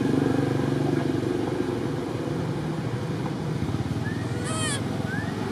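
A motor engine running steadily with an even low rumble, and a short run of high chirps about four seconds in, with a single chirp near the end.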